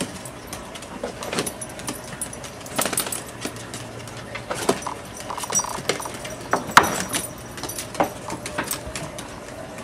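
Dogs playing on a hardwood floor: collar tags jingling and claws clicking in an irregular scatter of sharp little clicks, the loudest about seven seconds in.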